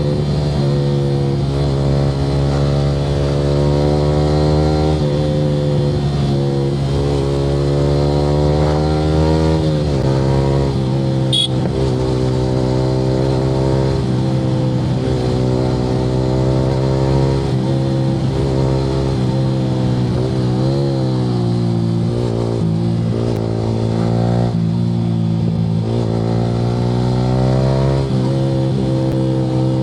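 Yamaha R15 V3's 155 cc single-cylinder engine running through an Akrapovic R9 aftermarket exhaust while riding, its revs climbing and dropping several times as the bike accelerates and eases off.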